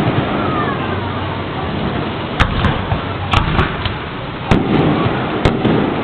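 Fireworks going off: a series of sharp bangs and pops, about seven at irregular intervals from around two and a half seconds in, over steady background noise.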